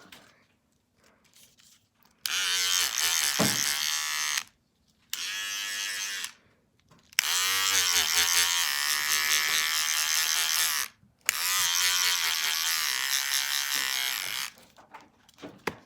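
Electric shaver buzzing in four separate runs, starting about two seconds in. The two longer runs last three to four seconds each. Each is a steady high buzz whose pitch shifts a little as it starts.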